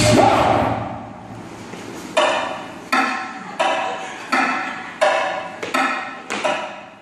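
Dance track played over the studio speakers at a sparse break: the sung line fades out in the first second, then sharp pitched stabs land about every three-quarters of a second, each ringing out briefly.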